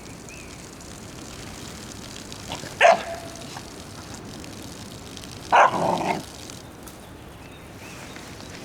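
A puppy barks twice: a short bark about three seconds in, then a longer one near six seconds, over steady background noise.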